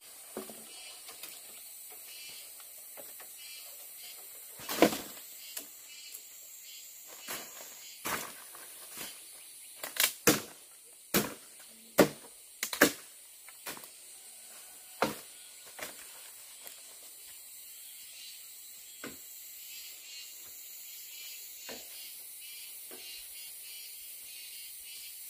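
A run of sharp, separate knocks and clacks, about a dozen over some twelve seconds, with the loudest in the middle, over a steady faint high hiss.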